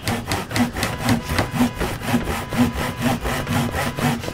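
Hand saw cutting wood in quick, even back-and-forth strokes, about two a second.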